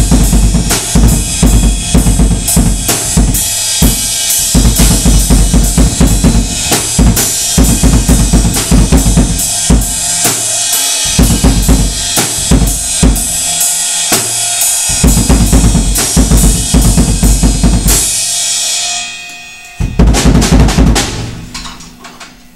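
Drum kit played hard and fast: a bass drum with its muffling taken out giving heavy, ringing low hits under snare strokes and a steady wash of cymbals. About 18 s in the playing stops and the cymbals ring down, then a final burst of hits around 20 s rings away.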